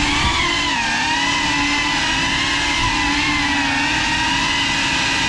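GEPRC 35 cinewhoop drone's motors and propellers whining in flight, the pitch wavering up and down with constant throttle changes.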